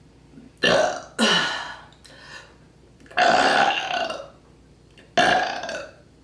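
A woman burping on command, four loud burps in a row: a short one about a second in, a second right after with a falling pitch, a longer drawn-out one in the middle, and another near the end.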